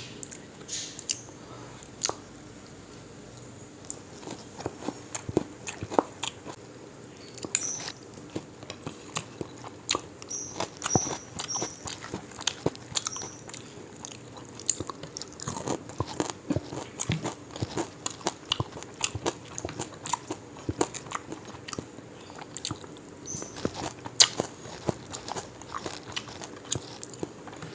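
Close-up eating sounds: a person biting and chewing crisp deep-fried parrot fish, with irregular crunches and wet mouth clicks.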